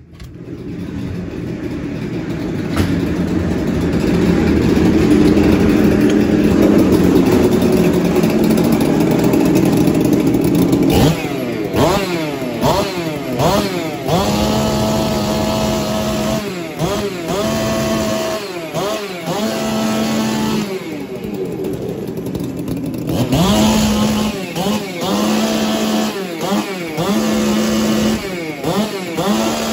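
Two Husqvarna 390 XP two-stroke chainsaws being run in, getting sharply louder as a door to their room opens. After a steady run they rev up and down over and over, the pitch rising and falling with steady high-revving stretches between the swells.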